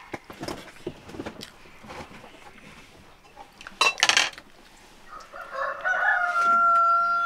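Light clinks and scrapes of utensils on dishes, with a louder clatter about four seconds in. Near the end a rooster crows: one long call with a steady held note.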